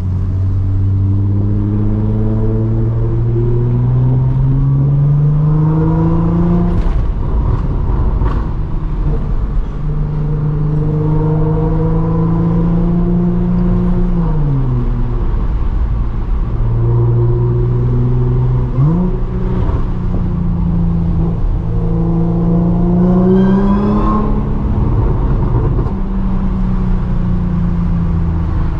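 A car's engine and exhaust pulling through the gears: the note climbs steadily for about six seconds, drops as it shifts up, holds, then falls away as the car slows. A few seconds later the revs jump sharply and climb again.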